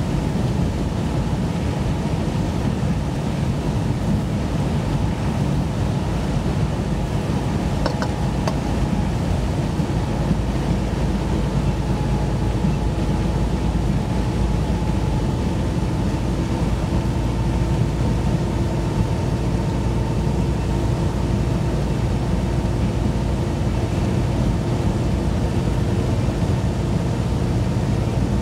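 Steady engine and tyre noise heard from inside a vehicle's cab cruising at highway speed, an even low rumble that holds throughout.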